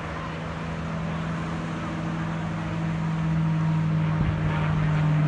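P-51 Mustang's V12 piston engine and propeller droning steadily in flight, growing louder as the plane approaches.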